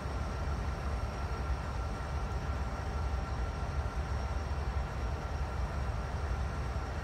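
Norfolk Southern diesel-electric locomotive idling while standing, a steady low rumble with no change in engine speed.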